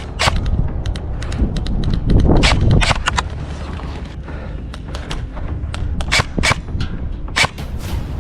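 Airsoft guns firing: scattered single shots and short bursts of sharp snaps, with a low rumble about two seconds in.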